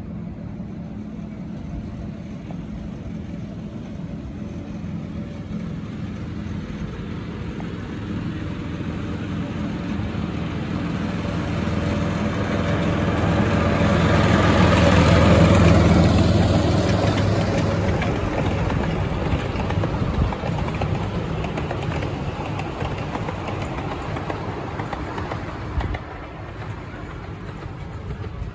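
Diesel engine of a miniature-railway locomotive built as an E2 tank engine body shell, running steadily as it hauls passenger carriages along the track. It grows louder as the train approaches, is loudest as it passes about halfway through, then fades as it goes away, with a couple of sharp clicks in the second half.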